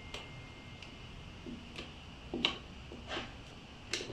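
Carved wooden base pieces of a table screen knocking and clicking lightly against each other as they are fitted together, about half a dozen short knocks at uneven intervals, the sharpest about two and a half seconds in and near the end.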